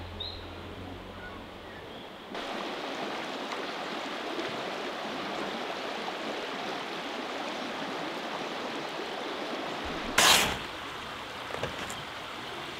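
Running river water, a steady rushing wash that cuts in suddenly about two seconds in, with one brief loud noise near the end.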